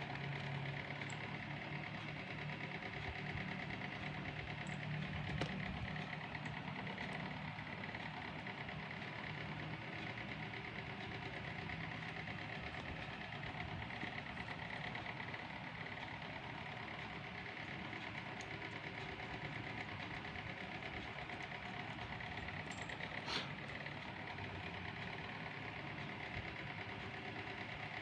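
A small machine running with a steady hum, with a faint click about twenty-three seconds in.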